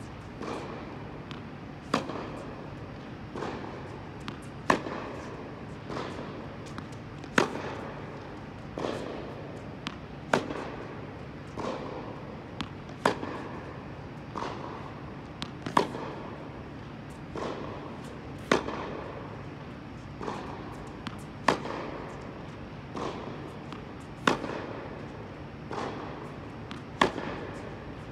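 Tennis racket strings striking a ball in a baseline rally on an indoor court. Loud near hits come about every three seconds, with fainter strokes and ball bounces from the far side in between, over a steady low hum in the hall.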